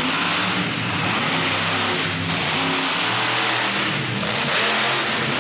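Monster truck engines running loudly and revving, the pitch rising and falling again and again.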